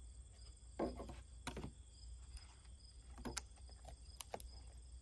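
Several small, sharp clicks of a clear plastic produce container being handled and its lid pressed shut, over a steady faint chirping of crickets.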